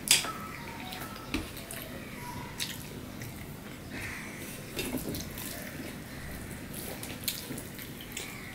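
Close-miked eating sounds: fingers squishing and mixing rice on a steel plate, with soft chewing. There is a sharp click just at the start and a few small clicks after it.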